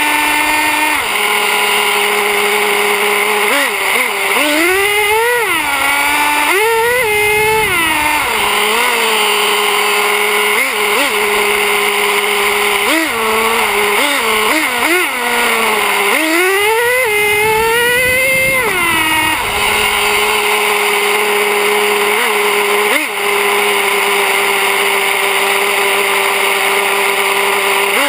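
Traxxas Slayer 4x4 RC truck's small two-stroke nitro engine, heard from on board, idling steadily and revving up and back down several times. The longest revs come about 4 to 7 seconds in and 16 to 19 seconds in. It settles back to a steady idle for the last several seconds.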